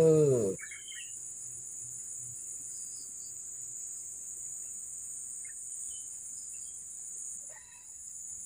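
Steady, high-pitched chorus of insects chirring without a break.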